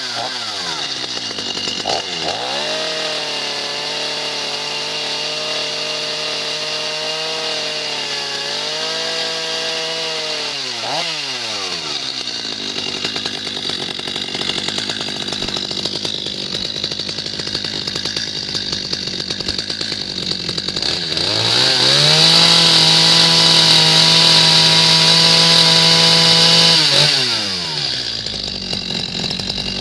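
Stihl MS230 40.2 cc two-stroke chainsaw revved up and held high for several seconds, then dropping back to idle. About ten seconds later it is revved again, louder, for about five seconds before falling back to idle.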